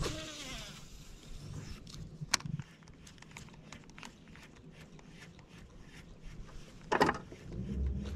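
Baitcasting reel spool whirring through a cast, falling in pitch over about a second as the spool slows, followed by a few faint clicks as the topwater bait is worked. A short, loud burst of noise comes about seven seconds in.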